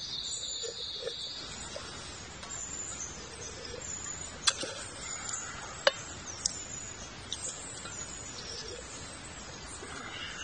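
Forest ambience with short, high chirps from small wild creatures and a brief buzz near the start, broken by two sharp clicks about four and a half and six seconds in.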